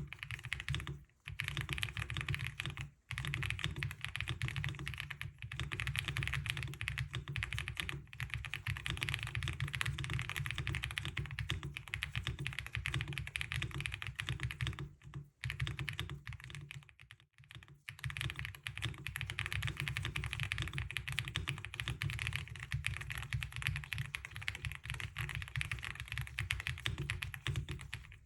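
Typing on an Akko M1 V5 VIA mechanical keyboard: fast, steady keystrokes with a few short pauses, about a second in, at three seconds and around fifteen and seventeen seconds.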